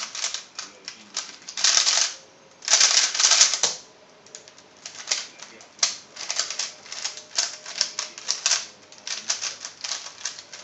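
Moyu Weilong 3x3 speedcube being turned at speed: rapid, dense clacking of plastic layers that stops about three and a half seconds in as the solve ends. After that come lighter, more spaced-out turning clicks.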